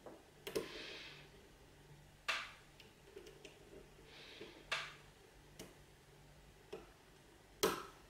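Steel lock pick working the wafers of a Duo Illinois wafer padlock under medium tension: about six sharp metallic clicks, irregularly spaced a second or two apart, the loudest near the end.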